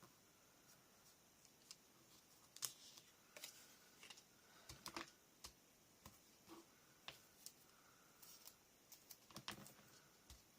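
Faint, irregular light taps and clicks of small chipboard and paper pieces being handled and set down on a crafting table, a dozen or more scattered through the stretch.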